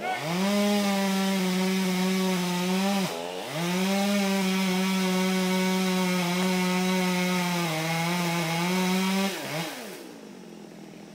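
Chainsaw run at full throttle cutting wood. It revs up, drops off briefly about three seconds in and revs straight back up, holds at a steady high pitch for about six seconds, then falls back to idle near the end.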